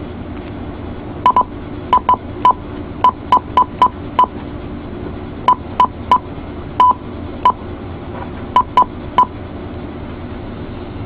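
Cobra 29 LX LE CB radio beeping: about twenty short single-pitch beeps, irregularly spaced and some in quick pairs, over a steady hiss and hum, stopping about two seconds before the end.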